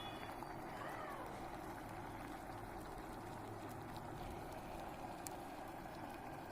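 Electric kettle heating water: a steady hiss and rumble. A faint short call comes about a second in, and a light click about five seconds in.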